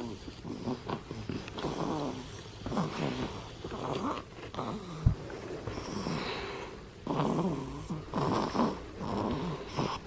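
Baby snoring in her sleep while still latched on at the breast: a run of short pitched breathing sounds, some falling in pitch. A single sharp knock comes about halfway through.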